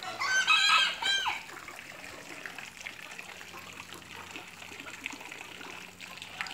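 A rooster crows once near the start, a call of about a second that falls off at the end, over a steady faint trickle of water into a pond.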